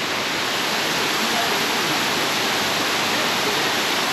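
Waterfall: a steady, even rush of falling water close by.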